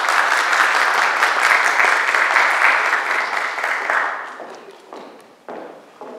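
Applause: dense clapping that fades away about four to five seconds in, followed by a few footsteps on the stage near the end.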